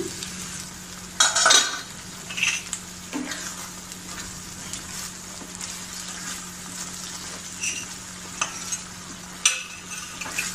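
Onion-free cashew-curry masala gravy sizzling and bubbling in oil in a nonstick frying pan as the metal lid comes off with a clatter about a second in, then a spatula stirs and scrapes through it. A steady low hum runs underneath.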